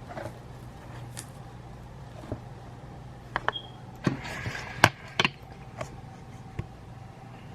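Cardboard box being handled and opened: scattered knocks and clicks, a short rustling scrape about four seconds in, and a sharp click just after it, over a steady low hum.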